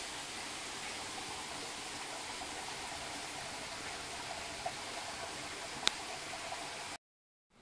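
Steady rush of flowing water from a mountain stream, with one sharp click about six seconds in; the sound cuts off abruptly near the end.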